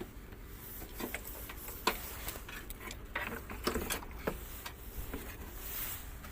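A dozen or so light, irregular clicks and knocks, as of hard parts and tools being handled during repair work, the sharpest about two seconds in.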